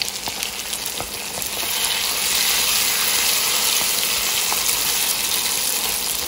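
Mutton karahi sizzling in hot oil and freshly added ghee in a non-stick wok as it is stirred with a silicone spatula. The hiss swells about two seconds in, then holds steady.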